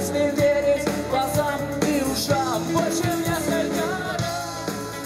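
Live rock band playing: a man singing over strummed acoustic guitar, with drums keeping a steady beat.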